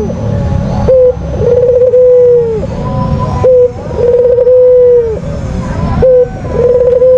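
White puter dove cooing in a repeated two-part phrase: a short coo, then a long, steady coo that opens with a quick flutter. The phrase comes three times, about every two and a half seconds.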